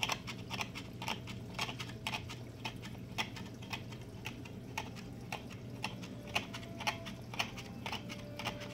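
Razor-blade Mag-Float magnetic algae cleaner scraping algae off aquarium glass: a rapid, irregular run of clicks and ticks, about three a second, over a steady low hum.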